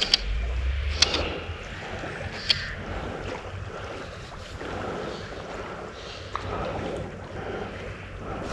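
Steady rush of river water with wind rumbling on the microphone, and a few sharp clicks in the first three seconds.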